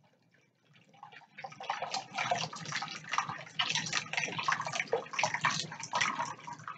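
Broth pouring from a carton into a glass measuring bowl: faint at first, then an uneven splashing pour from about a second and a half in.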